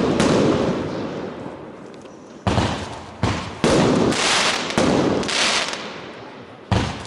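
Consumer fireworks going off: a run of loud bangs, several close together around the middle and another near the end, each one trailing away into a long fading rush of noise.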